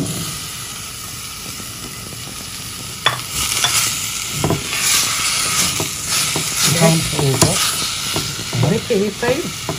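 Sliced apples sizzling in a hot pan of melted butter, sugar and cinnamon. About three seconds in the sizzle grows louder, with short scraping knocks as the apples are stirred to coat them.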